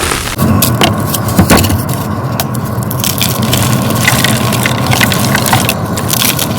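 Dyed gym chalk being crushed, a dense run of crisp crackles and crunches over a steady low hum.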